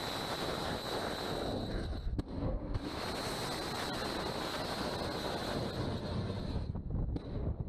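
Wind buffeting the microphone over sea noise, a steady rush with a heavy low rumble, broken by abrupt short dropouts about two seconds in and again near the end.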